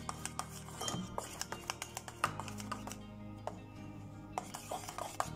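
Quick, irregular clicking and scraping of a small wire whisk against a stainless steel bowl as thickened bath gel is stirred fast by hand. Background music plays throughout, and the clicking eases for about a second past the middle.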